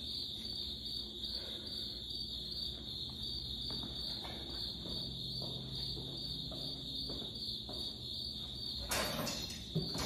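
Steady high-pitched cricket trill over a low steady hum in a shop, with faint footsteps. About nine seconds in comes a short rattle as the overhead garage door is taken hold of.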